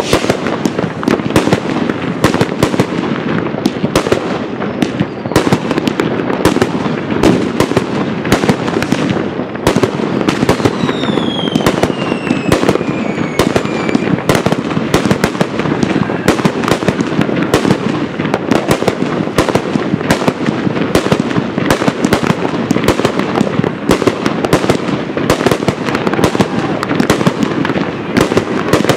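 Large fireworks display going off continuously: rapid, overlapping bangs and reports from aerial shells and batteries. About ten seconds in, a whistle falls in pitch over about three seconds.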